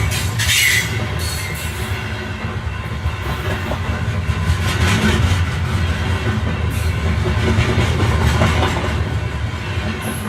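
Passenger train running on the track, heard from inside the carriage: a steady rumble with wheel clatter and a brief high wheel squeal near the start.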